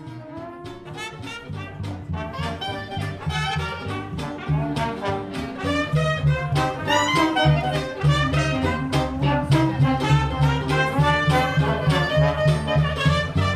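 Traditional jazz band playing: clarinet, trumpet and trombone weave melody lines over a steady low bass line from a contrebassine. The music grows louder over the first few seconds.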